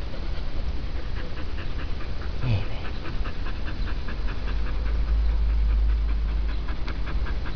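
Dog panting quickly and steadily, about four breaths a second, close to the microphone. Low wind rumble on the microphone, strongest toward the end.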